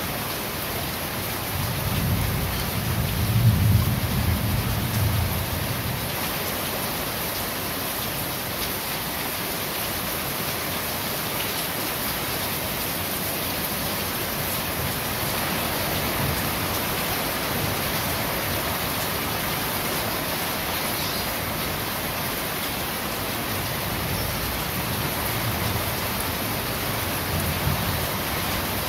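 Steady rain falling on a corrugated metal roof, an even hiss throughout. A low rumble of thunder swells about two seconds in, peaks a second and a half later and fades, and a fainter rumble comes near the end.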